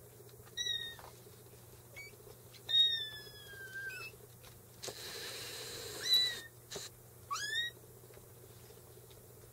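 Four-week-old kittens mewing in high, thin cries, about five in all. One long cry about three seconds in falls in pitch, and one near the end rises.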